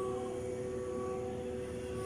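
HUMAN ELISA machine running with a steady whine of several held tones; a second, lower tone switches in at the start and holds.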